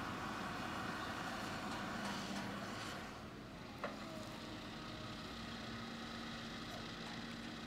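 Komatsu PC220 excavator's diesel engine running steadily as the machine swings and dumps a bucket of dirt, with a noisier rush in the first few seconds that eases off about three seconds in. A single sharp knock sounds just before four seconds in.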